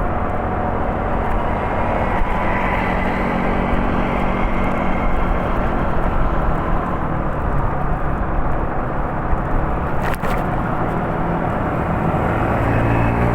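A steady, engine-like rumble with a low hum, and a brief click about ten seconds in. Its pitch starts to rise near the end.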